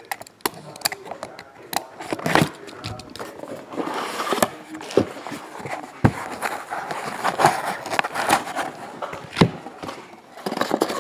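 A cardboard box and its foam packing insert being handled and opened: irregular scraping and rubbing with sharp clicks and knocks.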